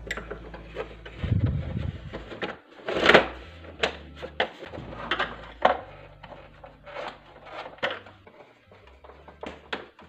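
Handling noises from reassembling a plastic vacuum cleaner: a run of sharp clicks and knocks as a wire connector is pushed home and the plastic housing halves are fitted and screwed together. The loudest is a scraping knock about three seconds in.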